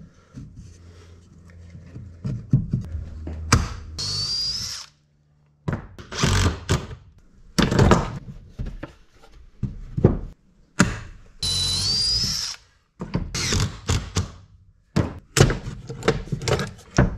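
A cordless drill drilling and driving screws into a wooden cabinet panel joint. It runs twice for about a second each time, with a rising whine, among thunks and knocks of wood and clamps being handled.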